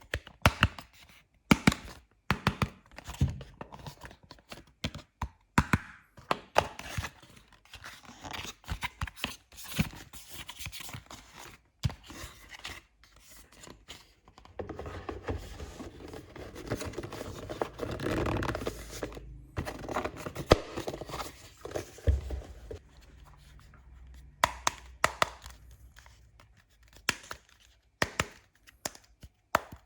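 Toy kitchen pieces and packaging being handled up close: a string of sharp clicks and taps, with a few seconds of steady rustling about halfway through.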